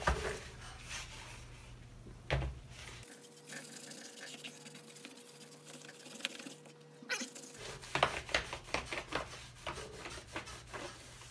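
Wet magic eraser scrubbing a vinyl door panel in short rubbing strokes. The scrubbing goes quieter through the middle, and near the end comes a run of quick clicks from the panel's clips knocking on the wooden table as the panel shifts.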